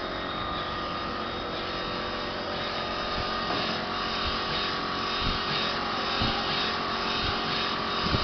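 YD-A2b UV flatbed printer running as it prints: its carriage drives across the bed with a steady motor whine and hum, and a few soft knocks come in the second half.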